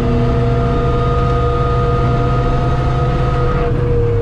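Suzuki Swift 1.3 GTi 4x4's four-cylinder engine running at a steady speed, heard from inside the cabin over road noise; the engine note eases off near the end.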